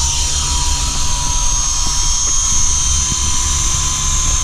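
Sky Rover Exploiter S toy coaxial RC helicopter flying, its small electric motors holding a steady high whine over a low rumble of rotor wash.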